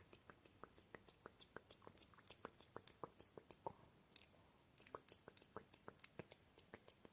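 Close-miked ASMR mouth sounds: a quiet, steady run of sharp, moist mouth clicks and smacks, about three a second.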